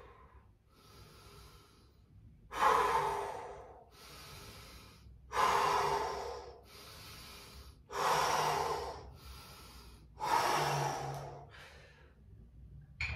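A person breathing hard from exertion: four forceful exhales about every two and a half seconds, each fading off, with quieter inhales between them.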